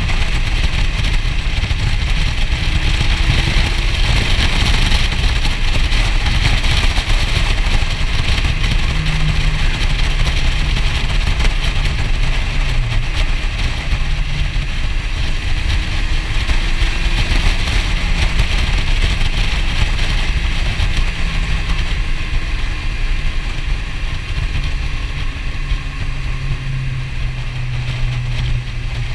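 Motorcycle engine running as the bike is ridden along, under a dense low rumble of wind on the microphone; the engine note shifts slightly in pitch now and then.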